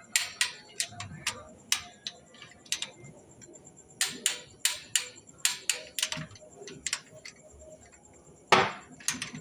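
Irregular sharp metallic clicks and knocks of hand tools working on metal during engine installation, a couple a second with short pauses, and one louder knock near the end.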